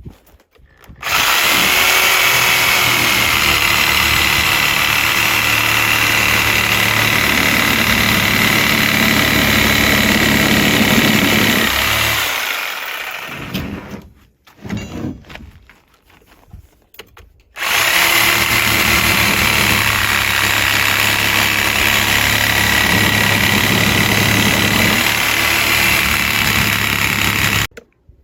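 Angle grinder cutting through the cords of an old tire on a steel split rim. It runs twice for about ten seconds each time, a steady high whine over grinding noise, and stops for a few seconds in between.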